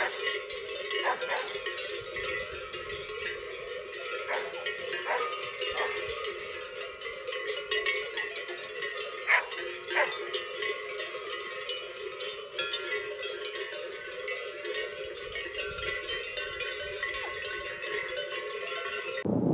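Cowbells on a herd of cattle ringing and clanking continuously, with sharper single clanks every second or few. The sound cuts off suddenly just before the end.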